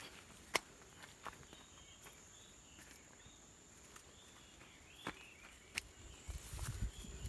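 Insects trilling steadily in a high-pitched tone, with a few sharp clicks and faint short chirps. From about six seconds in, louder rustling footsteps push through the garden plants.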